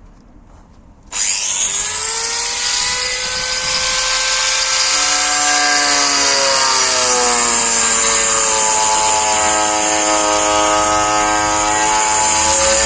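A 125 mm angle grinder fitted with a wood-cutting disc starts about a second in and runs on, cutting a board, with a high whine whose pitch wavers up and down.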